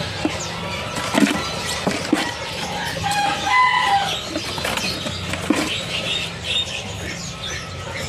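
Caged birds fluttering their wings in quick irregular bursts, with a brief bird call a little after three seconds in.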